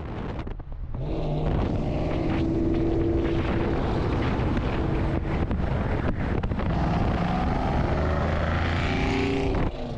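A car driving: the engine runs steadily under road and wind noise, and its note shifts and rises near the end.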